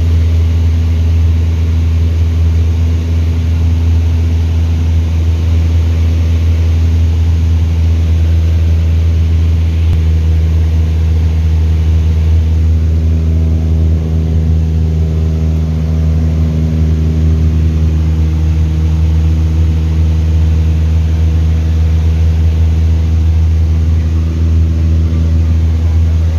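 Light aircraft's piston engine and propeller running steadily: a loud, deep hum with a stack of steady overtones that shift slightly in pitch partway through.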